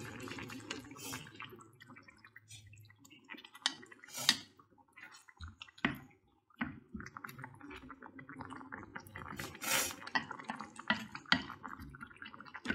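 Thick tempoyak and petai gravy bubbling as it simmers, with irregular wet pops, while a wooden spoon stirs through it and now and then knocks or scrapes the dish. A few louder pops stand out about four and ten seconds in.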